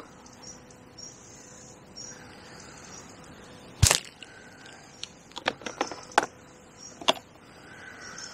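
Angler's catapult firing loose feed: a single sharp snap as the pouch is released, about four seconds in. It is followed by a quick run of lighter clicks and taps, and another snap near the end.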